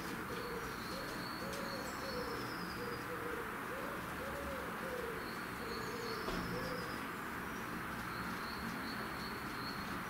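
Feral pigeon cooing: a run of low, rounded coos, one after another, that stops about seven seconds in. Thin high calls, faint and short, come and go over a steady background hiss.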